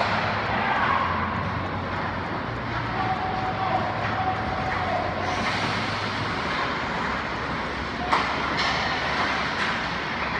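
Ice rink play: skate blades scraping across the ice over a steady low hum, with a few sharp knocks of play near the end.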